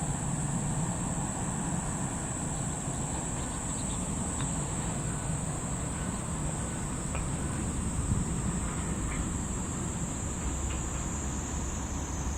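Steady, high-pitched drone of summer insects, one even tone that sags slightly in pitch near the end, over a low rumble.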